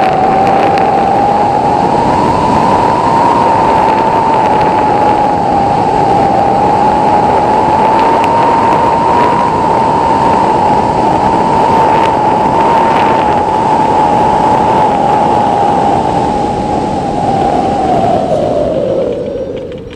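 Wind rushing over a hang glider and its wing-mounted camera in flight, with a steady whistle that falls in pitch and fades as the glider slows and touches down near the end.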